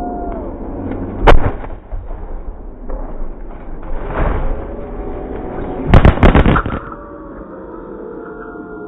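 Full-size bus engine running with pitch that falls and rises, broken by loud crashing impacts: one heavy bang about a second in and a rapid cluster of bangs around six seconds in, as the bus lands short on the lawnmowers it failed to clear.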